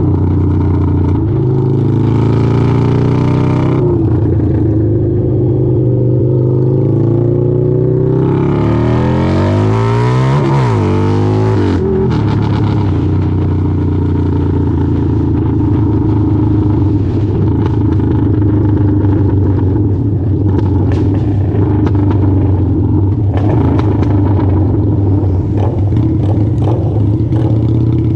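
Motorcycle engine idling steadily. About eight to twelve seconds in, another engine passes by, its pitch rising and then falling.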